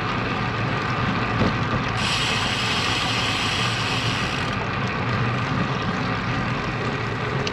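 Road bicycle rolling on rough asphalt: steady tyre rumble with wind noise on the bike-mounted camera's microphone. From about two to four and a half seconds in, a brighter high hiss joins, then drops away.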